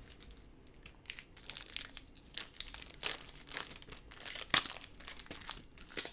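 Crinkling and rustling as baseball trading cards and their pack wrapper are handled: a run of short, irregular crackles, the loudest about four and a half seconds in.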